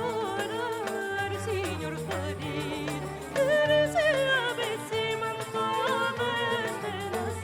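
Music: a solo voice singing an ornamented, wavering melody over low held accompaniment notes, growing louder about three and a half seconds in.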